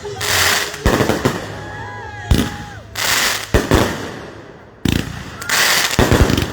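Consumer aerial fireworks going off: a run of sharp bangs roughly once a second, some in quick pairs, each trailing off in a crackling echo.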